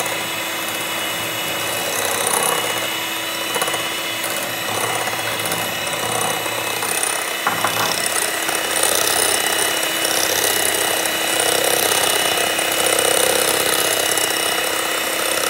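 Inalsa electric hand mixer running steadily, its twin beaters whipping a liquid mix of instant coffee, sugar and hot water against a ceramic bowl, with a steady motor whine. A brief click about halfway through.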